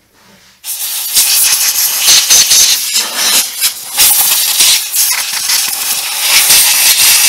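Compressed-air blow gun blasting dust off a Honda mower engine's valve cover: a loud, uneven hiss that starts just under a second in.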